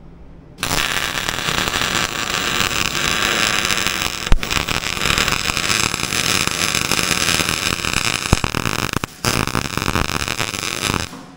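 Electric arc welding on a steel bucket: the arc crackles steadily for about ten seconds, with a short break near the end and a sharp click about four seconds in.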